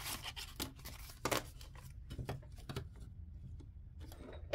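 Paper dollar bills rustling and crackling in short scattered bursts as they are handled and stood in a cash tray, the loudest rustle about a second in, over a faint low hum.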